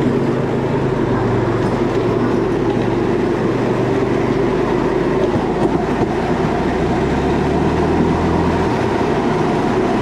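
Motorcycle-powered rail cart (a San Cipriano 'brujita') running along the railway track, with a steady engine and rail noise throughout. The engine note shifts about seven seconds in.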